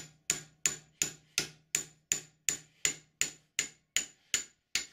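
Steel hammer tapping a metal drift against a part held in a bench vice, driving a pin home. It lands about 14 evenly spaced blows at just under three a second, each a sharp metallic tap with a short high ring.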